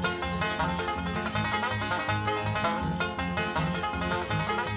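Background music, a quick run of notes over a steady accompaniment.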